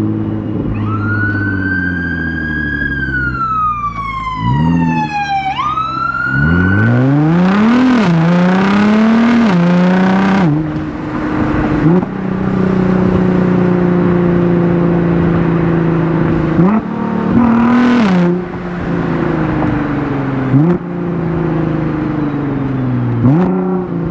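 An ambulance siren wails with a slow gliding pitch for the first six or seven seconds, over a Nissan GT-R R35's twin-turbo V6. The engine then pulls up through the revs several times, with short breaks where the dual-clutch gearbox shifts and a steady stretch of cruising in between.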